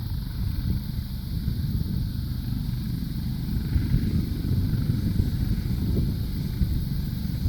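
A U.S. Coast Guard helicopter running, a steady low rumble from its engine and rotor.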